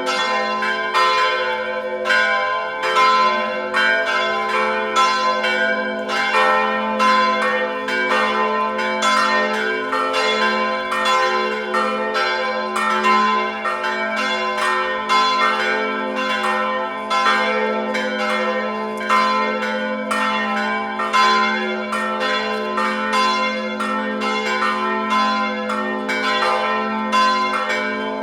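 Several church bells pealing together without a break, struck in quick overlapping succession at about two strikes a second, their tones ringing on over a steady low hum from the deepest bell.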